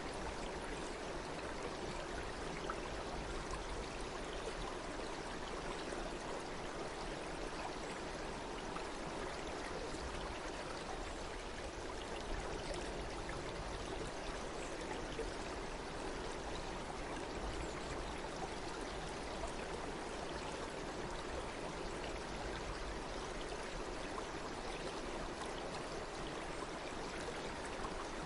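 Stream water flowing steadily, an even rushing sound without pauses.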